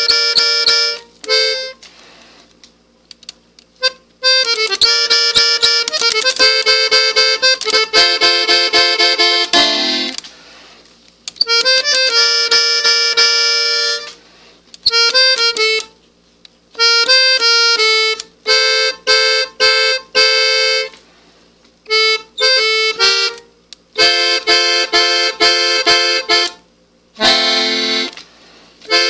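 Three-row diatonic button accordion played on the treble buttons: short melodic phrases of a few seconds each, separated by pauses of one to two seconds. Light clicks can be heard in the pauses.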